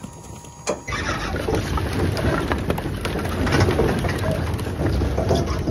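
Split firewood sliding off a tipped dump-trailer bed and clattering onto a pile of firewood: a steady jumble of many hollow wooden knocks that starts about a second in.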